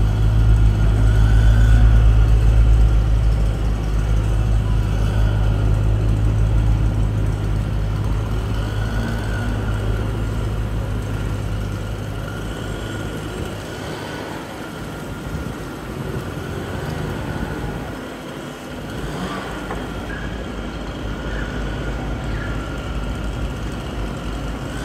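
2013 BMW M3's V8 engine idling steadily, its low hum strongest at first and growing fainter and more uneven about halfway through.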